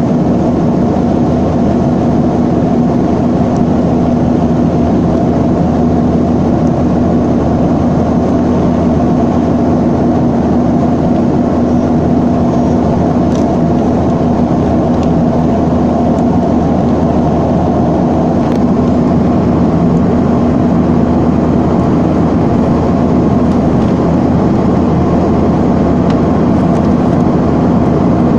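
Steady drone inside the cabin of a Boeing 737-300 in flight: its CFM56-3 turbofan engines and rushing airflow, with a steady low hum.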